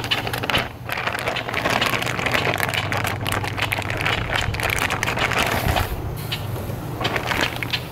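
Clear plastic zipper bag crinkling and rustling in the hands as wet fish fillets are worked out of it. A steady low hum runs underneath.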